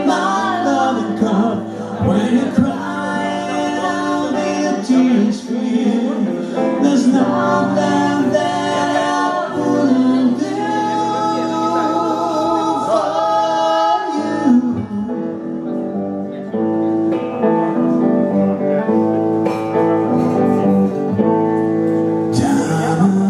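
Live rock band playing: a male lead vocal over electric guitar and drums. The band drops to a sparser passage about two-thirds of the way through, then comes back in full near the end.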